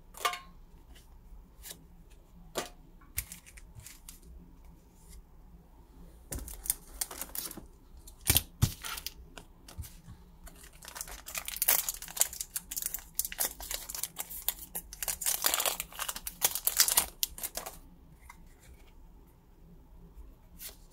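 Foil Pokémon booster pack wrappers torn open and crinkled, and trading cards handled and flicked through. Scattered sharp clicks, then two bouts of dense crackling and tearing, from about six to eight and from about eleven to seventeen seconds in.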